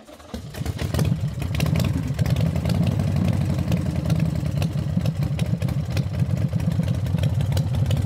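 Motorcycle engine running steadily, building up within the first second and then holding an even, rapid pulsing beat.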